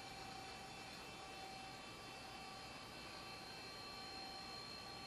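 Older Toshiba laptop running while it boots Windows XP: a faint, steady hum and hiss with a few steady whining tones from its internal machinery, rather noisy for the machine.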